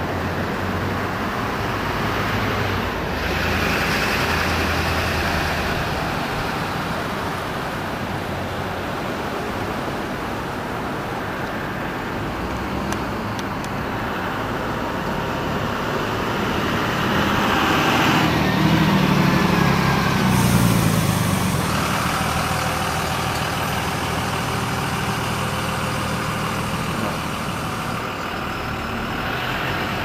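Road traffic driving past, a steady wash of tyre and engine noise. A heavier vehicle, such as a truck or bus, passes close by about two-thirds of the way through, its engine the loudest sound.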